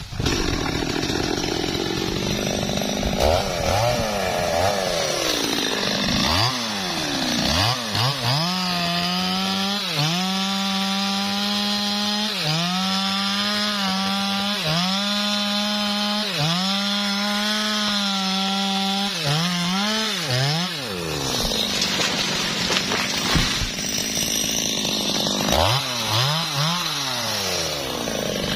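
Stihl two-stroke chainsaw cutting into a teak trunk, running at high speed with its note dipping briefly about every two seconds as the chain bites. Near the end the engine revs up and down several times.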